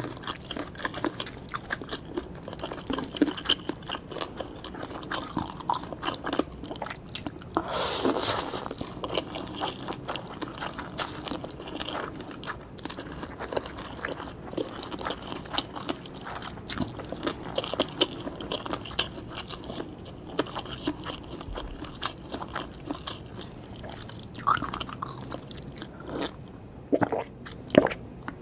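Close-miked biting, crunching and chewing of spicy green papaya salad, with many small wet mouth clicks and a longer, louder crunch about eight seconds in.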